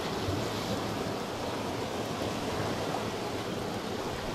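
Steady wash of sea surf against a rocky shoreline, an even noisy rush with no distinct events.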